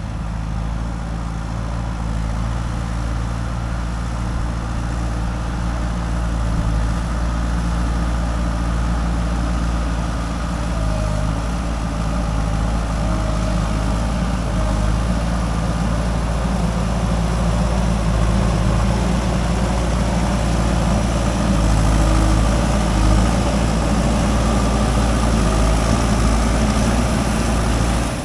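Diesel engine of a JCB 3DX backhoe loader running steadily while it works, growing somewhat louder at times.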